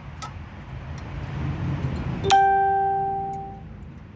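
A small click, then about two seconds in a sharp metallic clink of a metal tool or part striking metal, ringing on with a clear bell-like tone that fades away over more than a second, over a low steady rumble.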